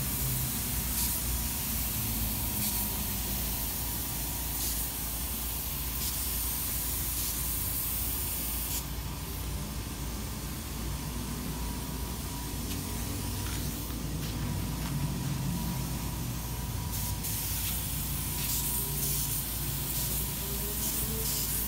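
Gravity-feed air spray gun spraying gray primer onto a steel truck bed: a continuous hiss of compressed air and paint mist that swells and eases irregularly as the trigger is worked, over a steady low hum.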